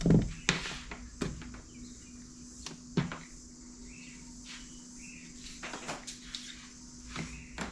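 Scattered light clicks and knocks from hands handling small wiring parts and tools, with one sharper knock about three seconds in, over a steady background hum.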